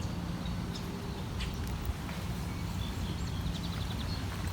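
Outdoor ambience with a steady low background noise. About three and a half seconds in there is a short run of faint, rapidly repeated high bird calls, heard as a duck.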